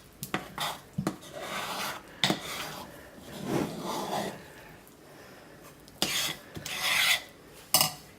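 Thick hot-process soap paste being stirred in a pot insert: irregular rasping scrapes with a few short knocks, the sharpest knock near the end.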